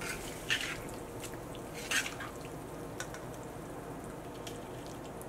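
Faint, scattered wet clicks and taps of a spatula stirring thick, saucy chicken in a steaming wok, with the flame off and no frying sizzle.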